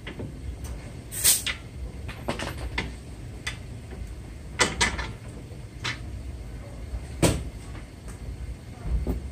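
Metal clunks and clicks as the front steering knuckle, with its brake rotor and caliper, is handled and shifted by hand. There are a handful of sharp knocks, loudest about a second in, a close pair near five seconds and one about seven seconds in, over a steady low hum.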